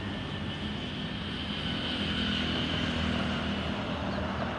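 Road traffic: a car passes close by, its engine and tyre noise swelling over a steady low rumble about two to three seconds in.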